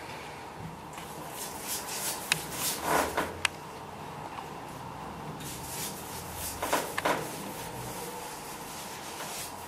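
Paintbrush stroking paint onto wooden woodwork: soft swishing strokes in two spells, with a couple of light clicks in the first.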